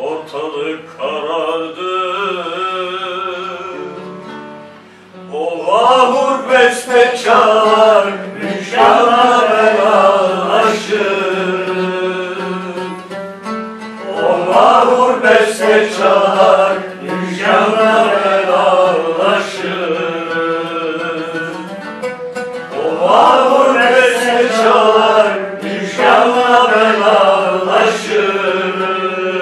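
A voice singing a slow, wavering melody over plucked-string accompaniment, in long phrases. It is softer at first, dips, and the voice comes in strongly about five seconds in.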